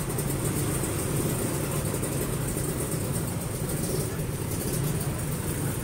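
Several two-stroke sport motorcycles idling together, making a steady, dense engine buzz with voices mixed in.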